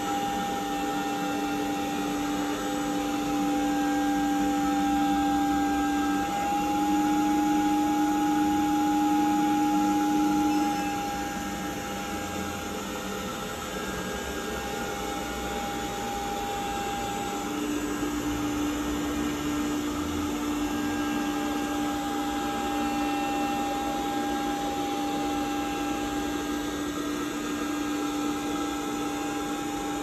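Window-cleaning robot's suction fan running steadily with a hum and a whine as the robot crawls down the glass, its suction holding it to the pane. It drops a little in loudness about eleven seconds in.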